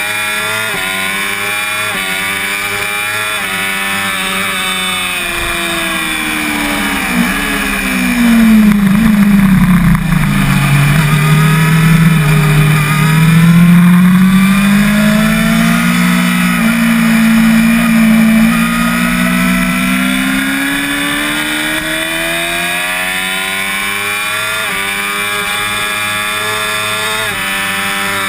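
Yamaha YZF-R6's inline-four racing engine at full throttle, its revs climbing in steps as it shifts up. About seven seconds in the pitch falls steeply as the bike slows for a corner, then it rises again out of the corner with further upshifts near the end.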